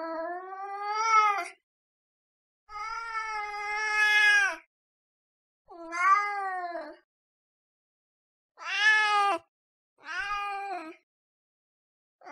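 A cat meowing: five drawn-out meows, each about one to two seconds long, the second the longest, separated by short silences, with a sixth starting right at the end.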